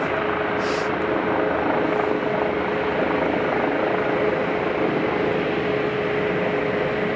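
Helicopter's turbine engine and rotor running steadily as it moves slowly across the apron, with a steady whine over the rotor noise.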